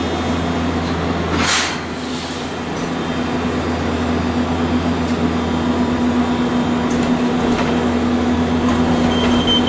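Interior running noise of a Hiroshima Electric Railway 800-series tram: a loud, steady hum. A brief hiss comes about one and a half seconds in, and then the noise slowly grows louder.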